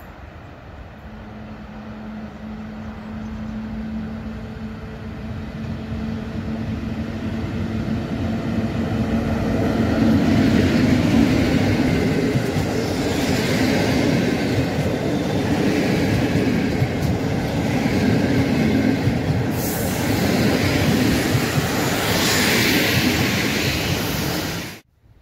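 A locomotive-hauled passenger train, an EP07 electric locomotive with Intercity coaches, approaching and passing along the platform. It grows louder with a steady low hum as it nears, then the coaches go by with a loud rumble and clatter of wheels on the rails. The sound cuts off abruptly near the end.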